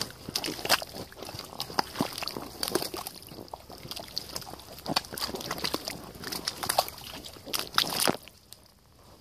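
Rubber waders working through thick wet mud: irregular squelching, sucking and sloshing as the legs move, stopping suddenly about eight seconds in.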